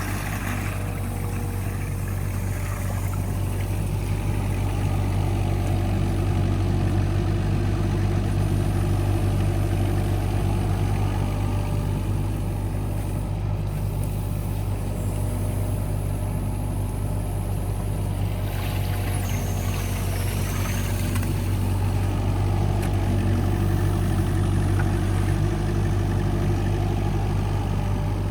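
Excavator engine running steadily under work, its low hum swelling a little louder twice as it digs and moves muck.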